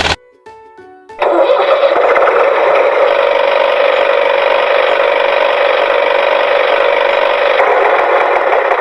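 Toy vehicle's electronic sound effect: a short tune of stepped beeping notes, then about a second in a quick rise into a steady buzzing engine-running drone.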